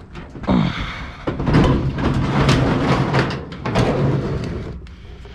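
Scrap item being shoved up a loading ramp: a dense scraping and rattling with knocks and bangs, lasting about four seconds.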